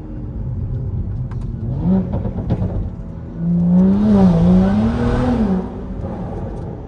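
BMW 335i's turbocharged straight-six engine revving. A short rev rises about two seconds in, then a louder rev of about two seconds has its pitch rise, dip and rise again before dropping back to a low steady rumble.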